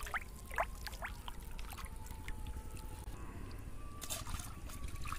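A few short rising chirps, then about four seconds in a brief splash as a fishing line is jerked out of the pond water to strike a bite on the float.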